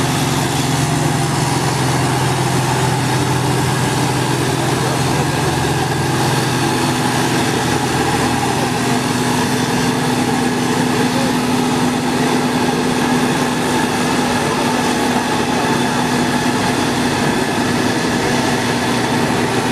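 Diesel engine of a tanker truck bogged in deep mud, running steadily. Its note shifts about six seconds in, as the low hum gives way to a higher steady tone.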